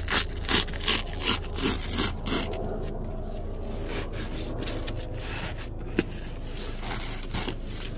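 A hand rubbing and scraping against the cloth seat cushion and bolster cover in quick repeated strokes, about seven in the first two and a half seconds, then a quieter rustle with a single click about six seconds in.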